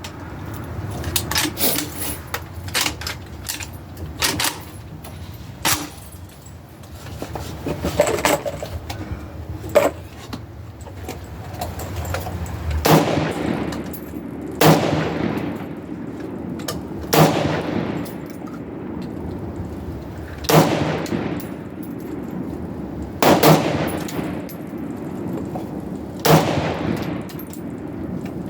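Rifle shots at a shooting range. Scattered short, sharp cracks come in the first half, then slow, evenly paced shots every two to three seconds, each trailing off in an echo.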